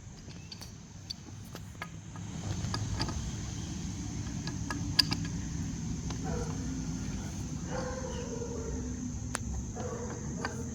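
An engine running steadily low, louder from about two seconds in, with scattered light clicks over it.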